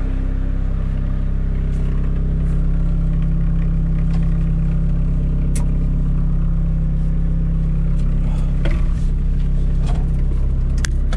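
Caterpillar E70B excavator's diesel engine idling steadily, with a few sharp clicks and knocks from the cab as it is climbed into.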